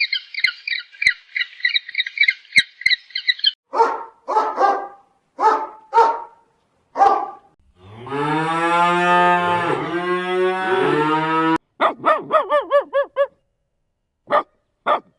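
A string of different animal calls: rapid high-pitched chirping, then about six short dog-like barks, then a long cow moo, then a quick series of short calls and two brief ones near the end.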